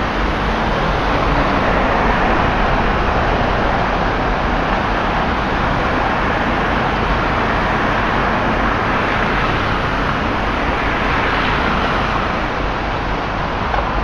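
Road traffic on a flooded street: car tyres hissing through standing water, the steady wash of spray swelling a little as vehicles pass.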